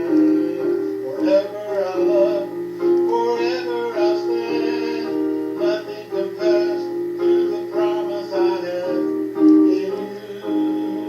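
Electronic keyboard playing a slow worship-song accompaniment with sustained chords, under a singing melody line.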